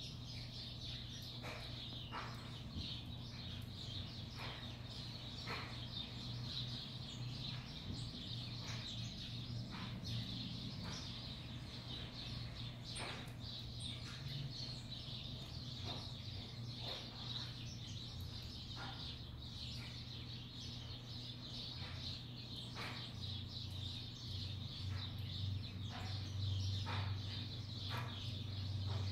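House sparrows chirping: scattered short chirps at irregular intervals over a steady low hum.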